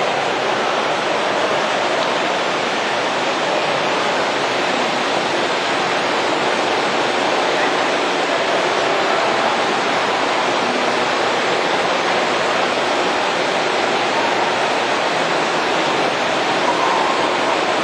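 Steady, unbroken rush of swirling, falling water from a water-tornado (vortex) fountain.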